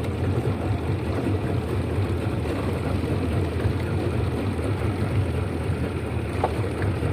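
A motorboat's engine running steadily with a low hum, with wind rushing over the microphone.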